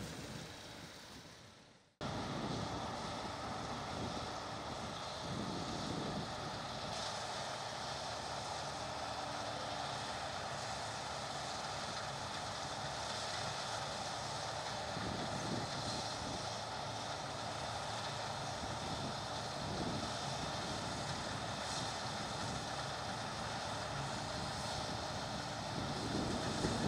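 Combine harvester running steadily at work, with wind noise on the microphone. The sound fades away over the first two seconds and a new shot of the same steady machine noise cuts in.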